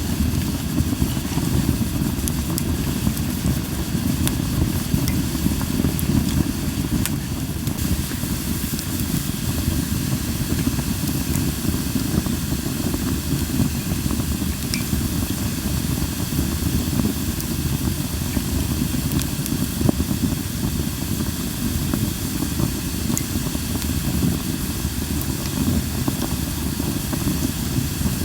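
Linden wood campfire burning with a steady hissing and scattered sharp crackles and pops over a low, even rumble.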